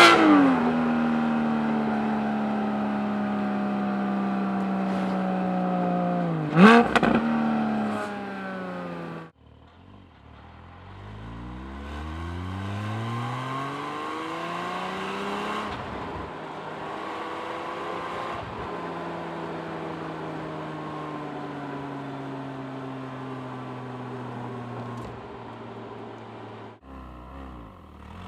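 Porsche 718 Cayman GT4's 4.0-litre flat-six engine and exhaust heard from outside the car in normal driving. At first the engine note eases slowly down, with a sharp rev blip about seven seconds in. After an abrupt cut, the car pulls away with the revs climbing through several upshifts, then settles into a steady cruise with the note slowly falling, before another cut into fresh acceleration near the end.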